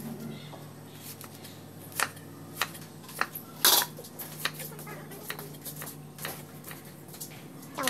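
Kitchen knife slicing through a banana flower and knocking on a wooden chopping board: irregular cuts, roughly one a second, the loudest a little before the middle.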